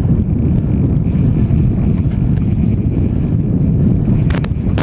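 Wind buffeting the microphone: a loud, rough, steady rumble with no speech, and a few sharp clicks near the end.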